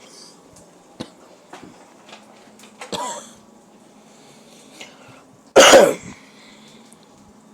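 A person coughs once, loudly and close, about two thirds of the way through, after a shorter, quieter throat sound a few seconds earlier. Faint clicks and taps are scattered in between.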